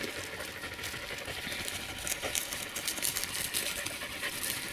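Faint, irregular crunching and rustling of movement through dry, short pasture grass.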